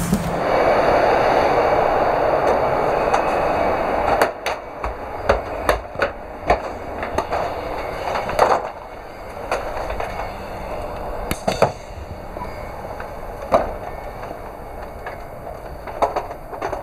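Inside a TGV EuroDuplex: a loud, even rushing noise in the gangway between two cars for about four seconds. Then a quieter cabin rumble with scattered sharp knocks and rattles.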